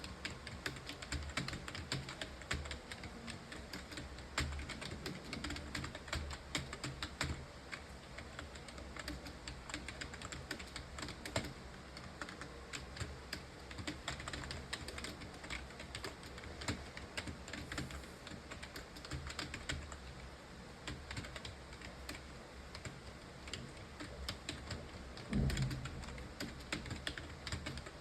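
Fast, continuous typing on a computer keyboard, keystrokes clicking in a steady stream. A single low thump near the end is the loudest moment.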